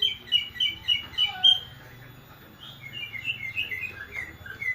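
Cucak ijo (green leafbird) singing an unusual song: a loud run of about six clear whistled notes in the first second and a half, then, after a short pause, a quicker run of notes.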